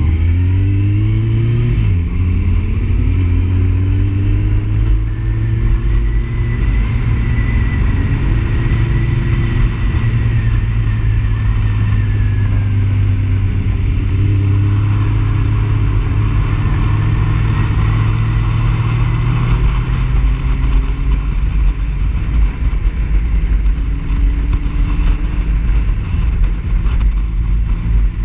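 Sport motorcycle engine under way, rising in pitch for the first two seconds, dropping sharply about two seconds in, then running fairly steady with slow rises and falls.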